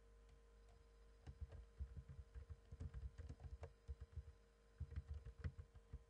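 Faint typing on a computer keyboard. A run of quick keystrokes starts about a second in and lasts a couple of seconds, and a shorter run follows near the end, over a steady low hum.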